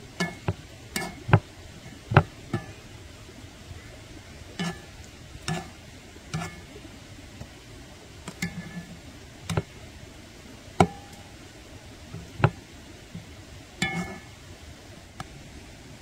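Irregular clinks and knocks of cooking utensils against pots and dishes, about twenty over the span, some leaving a short ring, over a steady background hiss.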